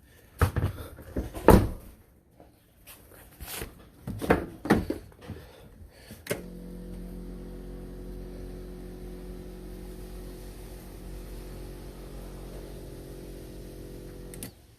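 Tools and metal parts clanking and knocking in a car's engine bay during alternator replacement, several sharp hits in the first six seconds. Then a steady hum starts abruptly and runs until it cuts off just before the end.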